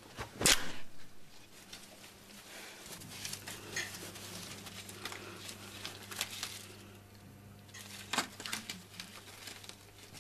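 Fabric rustling and crinkling as someone struggles into a tight sequined dress, with a sharp swish about half a second in and another a little after eight seconds.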